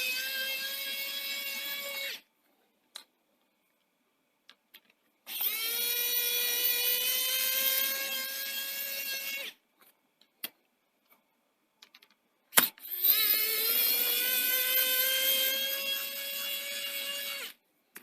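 Small electric screwdriver whirring in three runs, a steady whine that rises a little in pitch as each run starts, backing out the hinge screws of a laptop. Light clicks and taps come in the gaps between runs.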